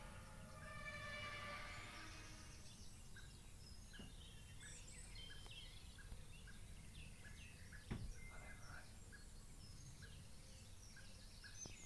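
A droning hum of several steady tones, the kind of 'strange sky trumpet' sound the video collects, fades out over the first two seconds or so. It gives way to birds chirping over a low outdoor rumble, with one bird repeating a short note about twice a second. There is a single sharp knock about eight seconds in.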